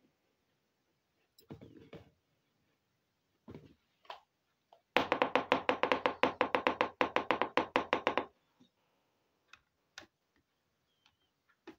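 Small plastic toy kitchen pieces tapping as they are set down, then a rapid clatter of plastic clicks, about ten a second for some three seconds, from a miniature plastic pot and its lid being handled. A few light taps follow, one as the pot is set on the toy stove.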